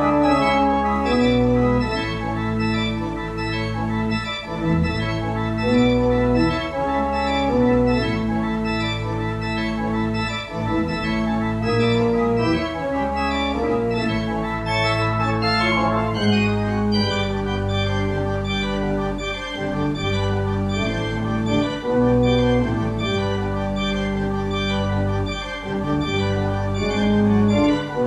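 Two-manual organ playing slow, sustained chords over a steady held bass line, the harmony changing every second or two.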